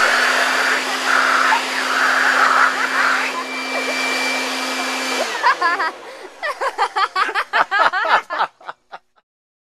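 Leaf blower running steadily, its air blast aimed into a person's open mouth, then switched off about five seconds in, its motor winding down. Laughter and voices follow.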